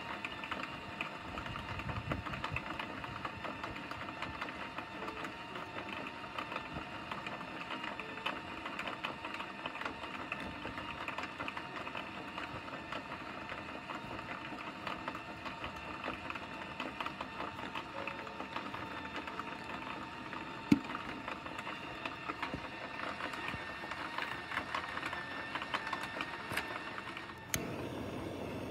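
Aluminum reacting in sodium hydroxide solution in a glass flask, fizzing steadily with a dense fine crackle as it gives off hydrogen gas that fills a balloon on the flask's neck.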